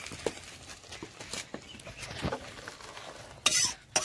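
A metal spatula scraping and clinking in an iron karahi of dal. About three and a half seconds in, the dal is poured from the tipped karahi into a metal pot, with short loud pouring rushes.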